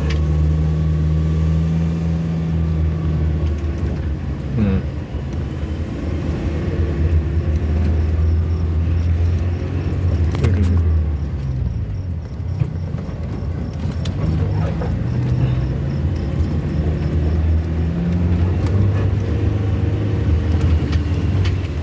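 Car engine running as the car is driven, a steady low drone whose pitch shifts with throttle, dropping sharply about four and a half seconds in and again about ten seconds in.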